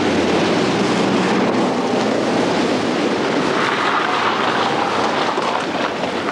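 Volkswagen Type 3 Squareback estate car passing close by and driving on, a loud, steady noise of engine and tyres on the road.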